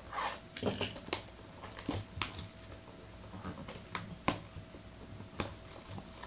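Scattered small clicks and rustles of a box break's packaging being handled and opened, with a faint steady electrical hum underneath.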